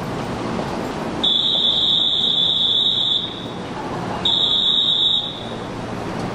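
High, steady electronic warning beep sounding twice, about two seconds and then about one second, the signal for departure as the train's doors are about to close, over the hum of a busy station platform.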